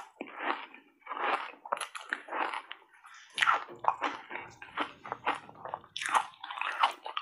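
Crunchy foam ice coated in matcha and milk powder being bitten and chewed, with irregular crunches several times a second.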